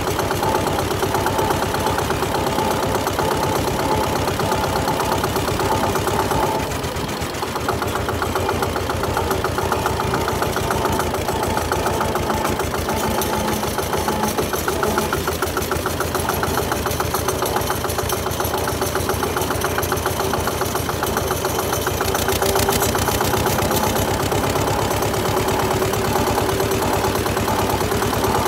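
Zetor 25 K tractor's two-cylinder diesel engine running with a steady, rapid chugging; it dips briefly about seven seconds in, then carries on.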